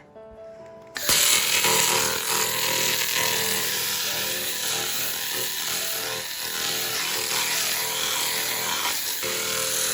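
Handheld fiber laser cleaning head working over a metal surface: a loud, steady hiss that cuts in abruptly about a second in.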